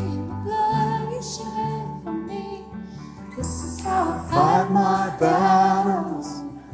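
Live worship band playing a slow song: guitars over a low bass line, with voices singing long held notes, loudest in the second half.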